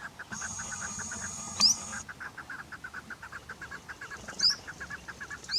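Chukar partridge calling: a fast, steady run of short chucking notes, about seven a second, broken three times by a sharp, loud rising note.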